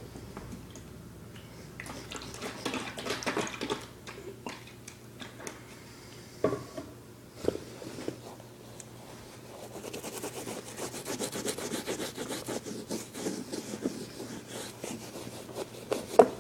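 A cloth rubbing leather conditioner into the leather upper of an Air Jordan III sneaker, in two stretches of quick scrubbing strokes. There are a few sharp knocks, the loudest near the end.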